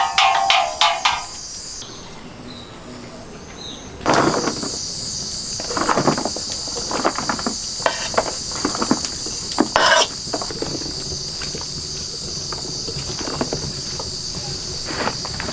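Irregular knocks and rattles of chopped jackfruit chunks tipped from a steel bowl onto a woven bamboo tray, with a steel spoon clinking against the bowl. The loudest knocks come about four seconds in and about ten seconds in. A steady high chirring of insects runs underneath.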